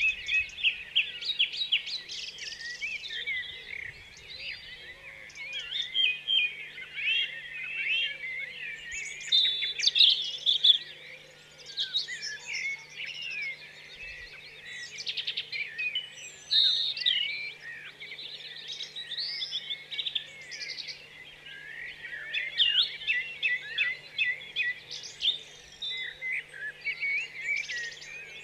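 A dense chorus of many birds chirping and calling over one another, swelling and fading in busy bursts.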